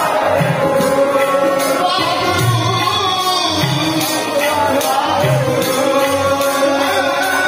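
Sikh kirtan: several men singing together into microphones, held notes over an accompanying instrument, with the congregation joining in.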